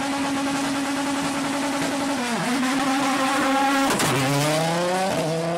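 Ford Fiesta WRC rally car's turbocharged four-cylinder engine held at steady high revs on the start line, dipping briefly once. Just before four seconds in there is a sharp crack and the car launches away, the revs dropping as it moves off and then climbing.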